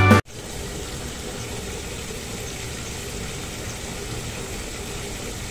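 Music cuts off just after the start, leaving a steady, even background noise with no distinct events.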